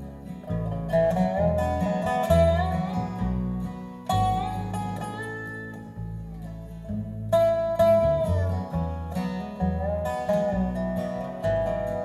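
Live acoustic string band playing an instrumental passage: a resonator guitar lead with sliding notes over strummed acoustic guitar and plucked upright bass.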